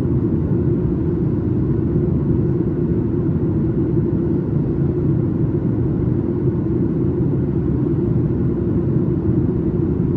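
Steady cabin drone of a Boeing 737 MAX 8 in flight: the CFM LEAP-1B engines and airflow make an even low rumble with a constant hum, heard from a seat behind the wing.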